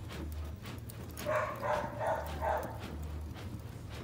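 A dog barking about four times in quick succession, starting about a second in, over a steady low hum.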